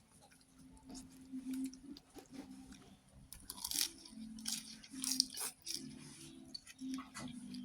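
Someone eating a bowl of thin rice noodle soup with pork: chewing and mouth noises with irregular short clicks and crackles, over a steady low hum.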